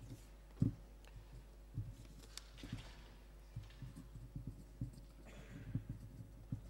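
Paper slips being handled on a wooden lectern close to its microphones: irregular soft knocks and thumps, the loudest about half a second in, with a few clicks and brief rustles of paper.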